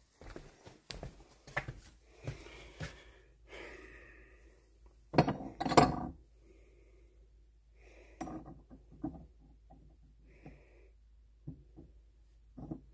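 Scattered knocks and clinks of cast metal bars being handled on a wooden cabinet shelf, the loudest cluster about five to six seconds in.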